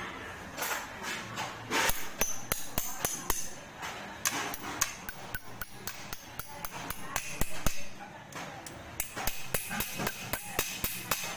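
Metal tool striking a bolt on the cast-metal housing of a sewing machine clutch motor: repeated sharp metallic knocks, irregular at first and coming faster, about three a second, near the end.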